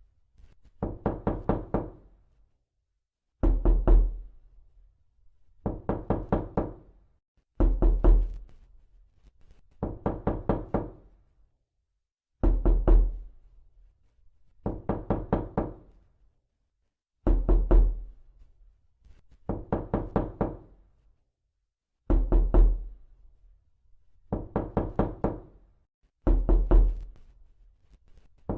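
Knocking in quick raps: a loud, heavy group of four or five knocks, then a softer group of five or six, the pattern repeating about every five seconds.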